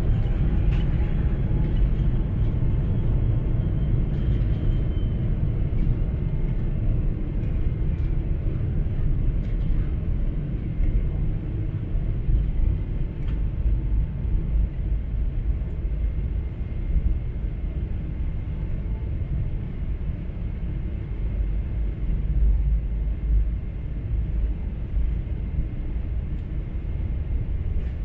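Jet airliner cabin noise in flight: a loud, steady low rumble of the engines and airflow. A faint tone glides upward at the very start, and faint steady tones sit above the rumble.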